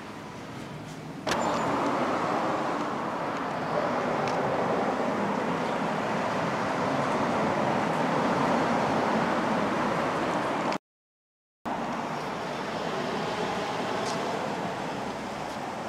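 Steady noise of road traffic going by. It steps up louder about a second in and cuts out completely for under a second about two-thirds of the way through.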